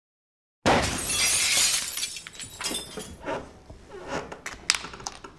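A sudden loud crash with a bright, hissing shattering noise that fades over about a second and a half, then scattered small clicks and clinks.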